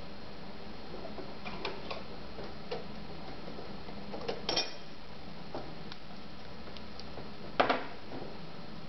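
Light metal clicks and taps from the slide plate and bobbin case of a Neckermann sewing machine as they are opened and handled, with the bobbin case being taken out. A scatter of small ticks, the loudest a quick double click about seven and a half seconds in.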